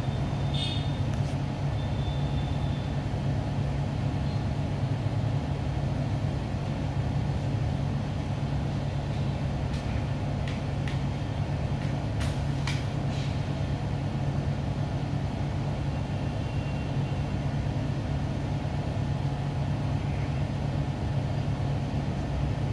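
Steady low mechanical hum with no speech, with a few faint clicks about a second in and again around the middle.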